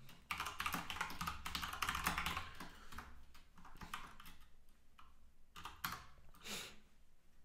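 Typing on a computer keyboard: a quick run of key clicks for about the first three seconds, then scattered single keystrokes.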